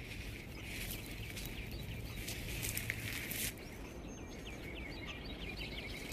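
Coyote pups scuffling and rustling about, over a low steady rumble, with a quick run of short high chirps about four seconds in.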